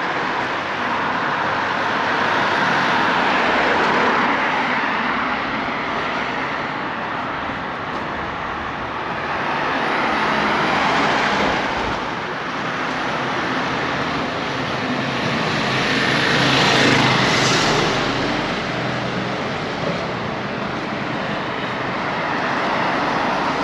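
Road traffic: cars passing one after another on a village road, each swelling and fading, the loudest about two thirds of the way in.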